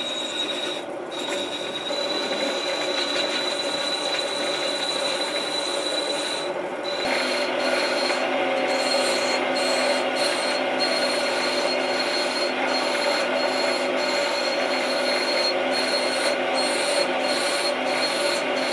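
Homemade mini lathe turning a small brass rod while a hand-held chisel cuts it: a steady high whine over a scraping cut, breaking off briefly again and again as the cut pauses. About seven seconds in the sound gets a little louder and fuller.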